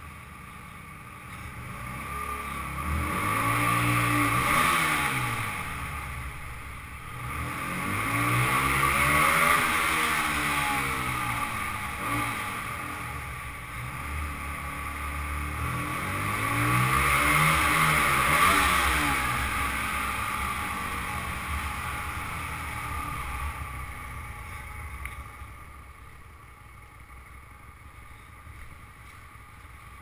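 Motorcycle engine revved three times inside a multi-storey car park, its pitch climbing and falling each time, then settling to quieter running near the end.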